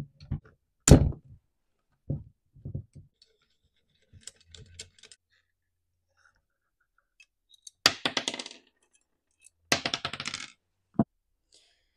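Metal tool and parts clicking and clinking as the muffler of a Stihl MS211 chainsaw is unbolted with a T27 T-handle wrench and lifted off. There are a few sharp clicks in the first five seconds, then two brief metallic clattering rattles about eight and ten seconds in, as the muffler's metal pieces knock together.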